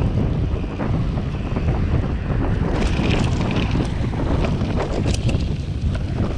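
Wind buffeting the microphone on a moving road bicycle, a steady low rumble. From about three seconds in, scattered clicks and rattles come in as the bike rolls off the road onto rough grass.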